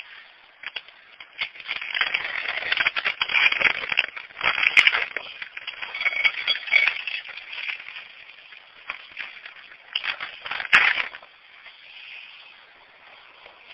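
Dry cat-food bag crinkling and kibble rattling and scraping as it is rummaged through, in irregular bursts with two sharp clicks, about five and eleven seconds in.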